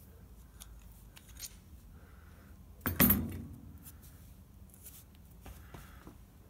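Metal parts of an AMMCO brake lathe's disk feed gearbox being handled: light clicks and clinks, and one loud metallic clank about three seconds in that rings briefly.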